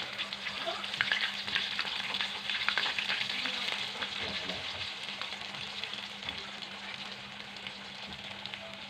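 Flour-coated chicken pieces sizzling and crackling in hot oil in a wok as more pieces are lowered in. The spatter is densest in the first few seconds and eases off toward the end.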